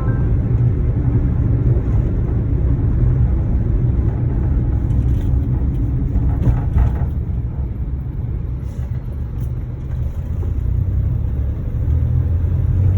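Steady low rumble of a vehicle in motion, heard from on board.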